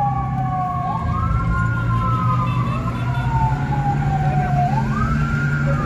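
Fire brigade sirens wailing: one tone falls slowly over about three seconds and then sweeps quickly back up, twice, with a second siren tone overlapping it. A steady low engine hum runs underneath.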